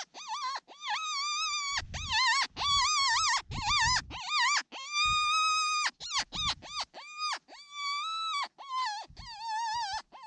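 Predator call sounding a string of high, wavering wails, each with a quick warble in it and cut off sharply before the next: a distress call used to lure coyotes in.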